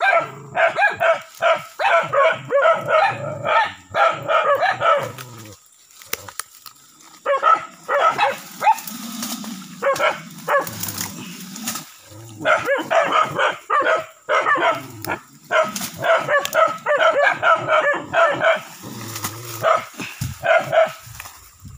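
Dogs barking rapidly at a cornered monitor lizard, in dense overlapping bouts with brief lulls about a third and halfway through.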